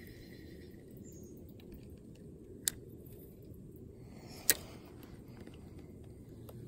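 Two sharp clicks about two seconds apart, the second louder, from a spinning rod and reel being handled, over a faint steady background hiss.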